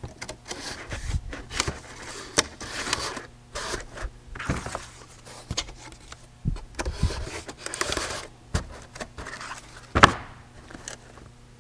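Stiff corrugated board divider panels scraping, rubbing and knocking as they are slid down into the slots of a corrugated box. The loudest is a sharp knock about ten seconds in.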